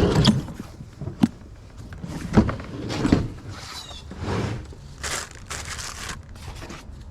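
Items being handled: rustling and crinkling with a few sharp knocks and clicks.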